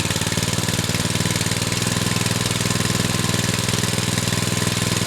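Small engine driving a dredge pump, running steadily with a rapid, even firing pulse while the pump is still priming and not yet pumping.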